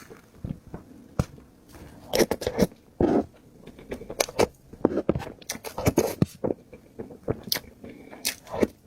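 Close-miked eating sounds: a person biting and chewing food in a run of irregular short clicks and crackles, a few louder than the rest.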